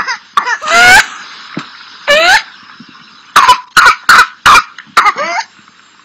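Whooping cough (pertussis) coughing fit: harsh coughs broken by high-pitched rising whoops, each a sharp in-breath between coughs, heard about a second in, just after two seconds and again near the end. There is a run of short coughs in the middle.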